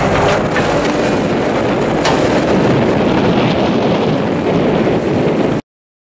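Bobcat 863 skid steer's Deutz four-cylinder turbo diesel running as the machine drives and turns, mixed with heavy wind noise on the microphone.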